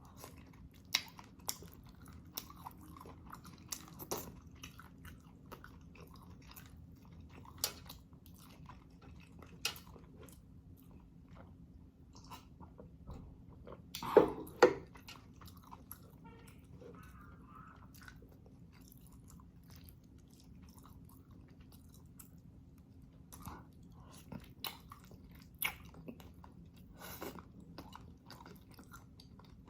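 Close-miked chewing and biting while eating beef kaldereta, with scattered wet mouth clicks and smacks. Two loud knocks come close together about halfway through.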